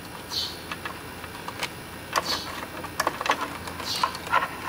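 Scattered small clicks and rustles of fingers handling loose wires, a small plastic plug and a flat ribbon cable inside an opened plastic control housing.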